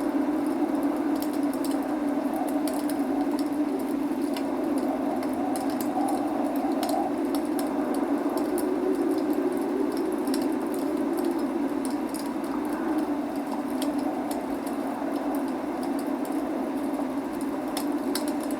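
Wood fire crackling, with frequent small sharp pops from the burning logs over a steady rain hiss.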